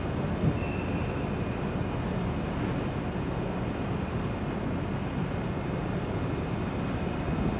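Steady low rumble of a berthed car ferry's machinery running, with a faint high whine in the first few seconds. Near the end a car comes out through the open bow door onto the ramp.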